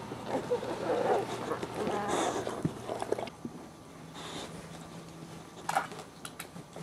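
Two-week-old Boxer puppies whimpering and grunting for about three seconds, then quieter, with a few sharp clicks near the end.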